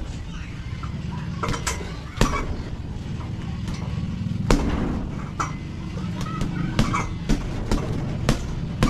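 Boxing gloves hitting a hanging heavy bag: about a dozen punches at an uneven pace, some landing in quick pairs as combinations.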